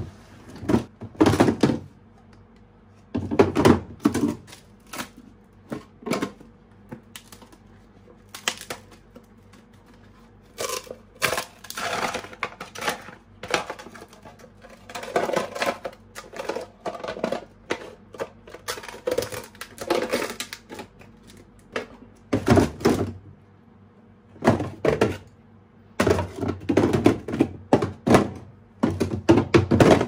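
Plastic freezer drawers and plastic food-storage containers knocking and clattering as they are handled, slid and set in place, in irregular clusters of sharp knocks with short quiet gaps.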